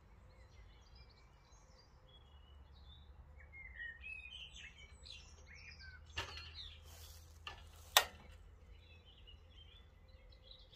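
Sharp clicks from a twin-burner camping gas stove as its control knob is worked to light the burner, a few between about six and eight seconds in, the last the loudest. Birds chirp throughout.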